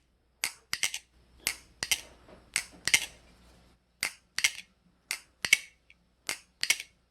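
Bgroove Replicant butterfly knife (balisong) being flipped open and closed over and over: sharp clicks as the handles and blade swing on their pivots and the handles meet, coming in quick twos and threes, several a second.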